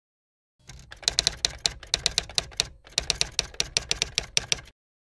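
Typewriter sound effect: keys striking in two quick runs of about five strokes a second, with a brief pause between the runs.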